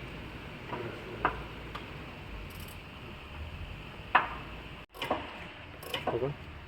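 A few short clicks and knocks of handling, the sharpest about four seconds in, over a low steady hum.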